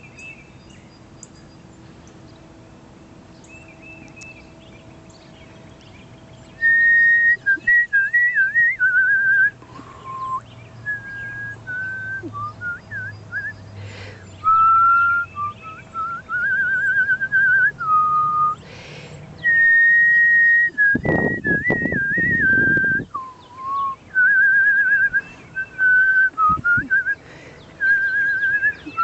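A woman whistling bird calls to lure cardinals in, starting about six seconds in: phrases of clear held notes, slurred notes and warbling trills, loud and close. A short burst of low rumbling noise breaks in about three quarters of the way through.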